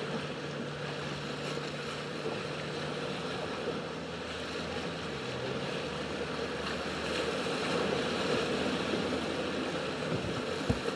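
Mercury outboard motor pushing a small Boston Whaler through choppy inlet water, its steady engine note dipping slightly about five seconds in, over the wash of waves and spray along the hull. A single thump near the end.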